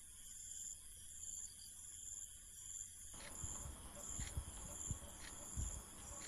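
Faint crickets chirping, short high pulses repeating about twice a second over a steady high hum. From about halfway through, a few soft low knocks.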